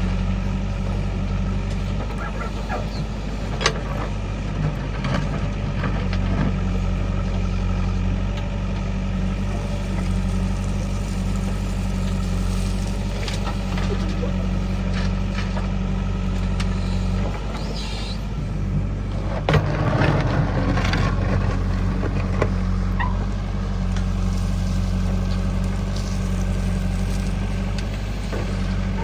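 A heavy diesel engine running steadily at a constant speed, with scattered metallic clanks and knocks. The loudest clank comes about two-thirds of the way in, amid a short burst of clatter.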